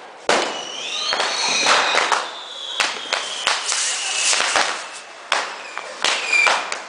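Fireworks of a torito, a bull-shaped frame loaded with fireworks, going off. Rapid, irregular firecracker bangs and crackles mix with whistling rockets: one whistle rises about a second in, and a long one slides slowly down over the next few seconds.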